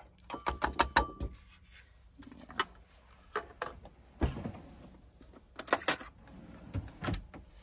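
Kitchen clatter of small knocks and clicks: a plastic food tub tapped against a ceramic bowl, mostly in the first second or so. Near the end comes a louder rattle as a cutlery drawer is pulled open and silverware clinks.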